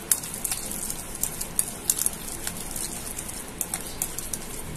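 Wire whisk beating thick hung curd in a glass bowl: irregular light clicks and scrapes of the metal tines against the glass.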